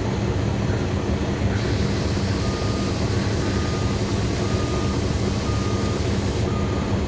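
Caterpillar C13 ACERT diesel engine of a NABI 40-SFW transit bus running steadily, heard from the rear seats inside the bus, close to the engine. A high hiss comes in about a second and a half in and drops away shortly before the end, with a faint thin whine coming and going over it.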